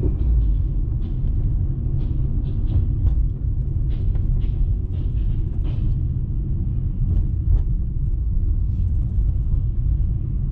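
Car driving along, heard from inside the cabin: a steady low rumble of engine and road noise, with a few faint clicks scattered through it.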